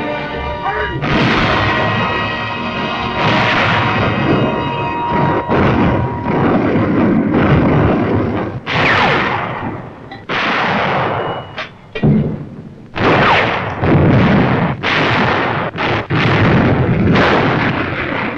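Orchestral music, then artillery firing in a barrage: from about eight seconds in, a rapid run of heavy booms, roughly one a second, each dying away quickly.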